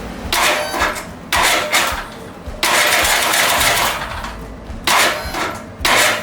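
Cub Cadet RZT S riding mower's engine being cranked by its starter in about five short bursts, the longest about a second and a half, without settling into running. The engine has been hard to turn over, which the owner put down to too much compression, and its valves have just been adjusted.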